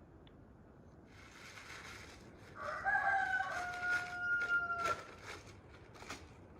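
A rooster crowing once: one long, level call starting a little over two and a half seconds in and lasting about two seconds, with a few short clicks around it.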